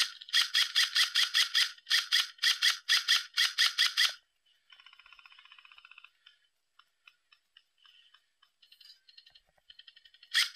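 Airsoft gun firing several long full-auto bursts, a rapid rattle of shots, which stops about four seconds in. Fainter rapid fire and scattered faint clicks follow.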